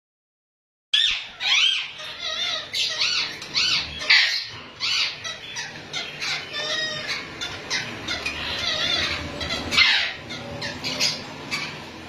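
Indian ringneck parakeets calling: a quick, busy run of high-pitched squawks that rise and fall in pitch, starting about a second in.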